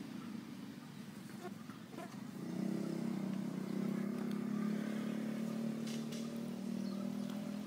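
A motor vehicle's engine running steadily, growing louder about two and a half seconds in and then holding an even drone.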